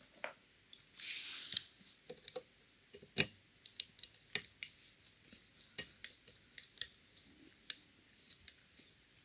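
Small metallic clicks and a brief scrape as a Fichet five-lever cabinet lock is handled and taken apart with a tool to expose its levers. A scrape about a second in, then irregular sharp clicks, a couple a second.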